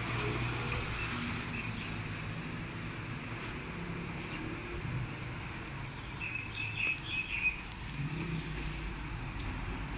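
Steady low engine rumble of road traffic, with birds chirping briefly about two-thirds of the way through.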